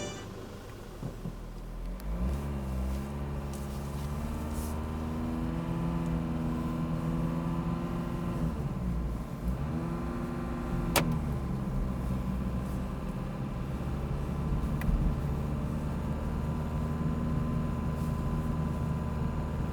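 A car engine running, its note dipping and rising again about two seconds in and again a few times between eight and ten seconds, as with changing engine speed. A single sharp click comes about eleven seconds in.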